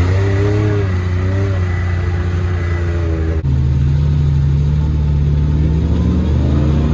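Pickup truck's engine held at high revs under load, straining to pull a stuck trailer. The engine note shifts abruptly about halfway through.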